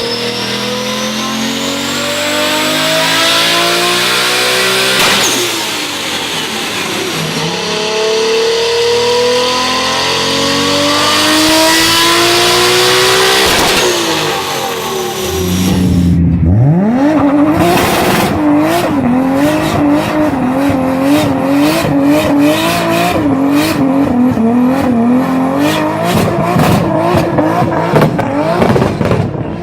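Turbocharged car engine pulling hard, its revs climbing, dropping at a gear change about five seconds in, then climbing again until about halfway. The engine then runs at wavering, roughly held revs with rapid crackling chatter.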